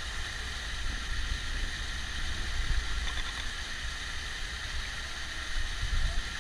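Distant approach of a PKP Class EP09 electric locomotive hauling an express train: a steady low rumble with a hiss above it.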